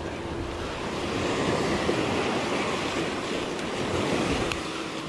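Surf breaking and washing up onto a sandy beach in a steady rush that swells and eases, with wind on the microphone.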